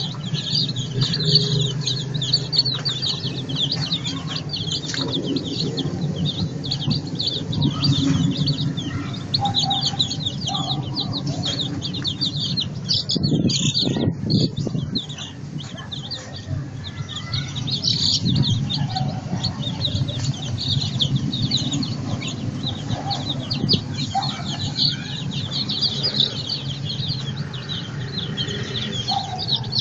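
A brood of Đông Tảo chicks peeping continuously, many high chirps overlapping, over a steady low hum. Around the middle the peeping briefly thins while a few low thumps sound.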